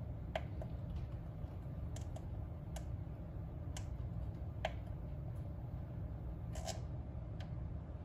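A few sharp clicks at uneven intervals from the voltage control knob of a bench DC power supply being turned to lower the output voltage, over a steady low hum.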